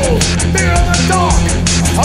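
Loud, dense band music from a garage band's demo track: steady drum hits over a heavy low end, with pitched lines sliding downward a couple of times.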